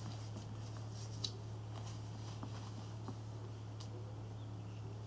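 Faint rustling and a few small clicks from a tape measure being handled and wrapped around a leg, over a steady low hum in a small room.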